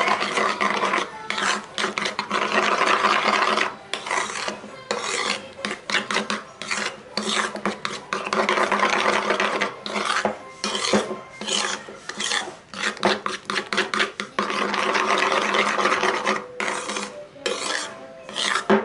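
Metal table knife stirring and scraping a thick mayonnaise-and-mustard sauce around a paper bowl, in runs of quick strokes broken by short pauses.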